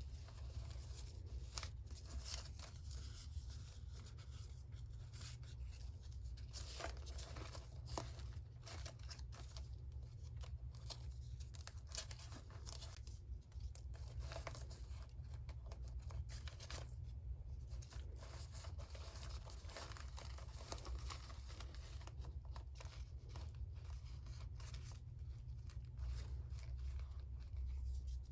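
Paper being torn and handled in irregular short rips and crinkles, over a steady low hum.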